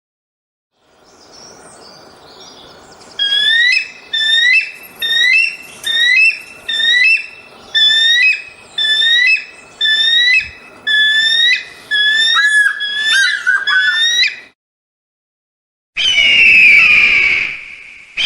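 Eagle calling: a run of about a dozen short, high, piping whistled notes about once a second, then after a brief pause a louder, longer, harsh scream near the end.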